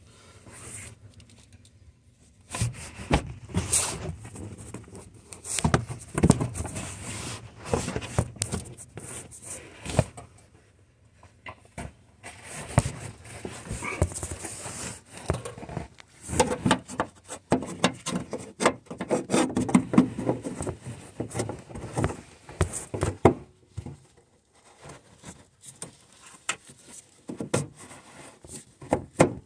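Gloved hands working a new bulb and its plastic cover into the back of a 2015 Chevy Equinox headlight housing: irregular scraping, rustling and clicking, broken by a couple of short pauses.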